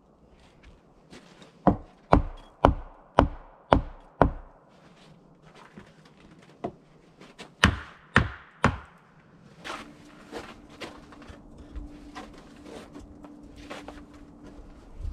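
Axe chopping into a log: six sharp strikes about half a second apart, then a pause and three more. After that come a faint steady hum and scattered light knocks.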